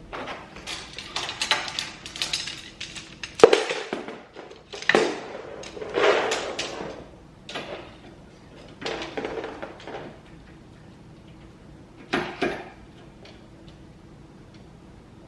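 Sections of a balloon arch frame being handled and fitted together: irregular rattling and clattering with a sharp knock about three and a half seconds in, one last clatter about twelve seconds in, then only a faint steady hum.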